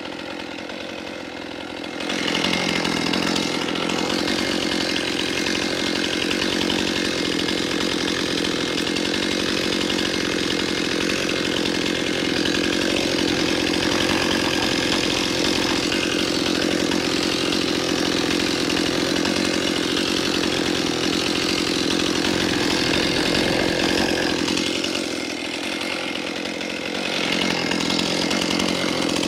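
Chainsaw running slow, then opened up about two seconds in and cutting into a cluster of mimosa stumps at high revs. The revs drop briefly near the end, then rise again.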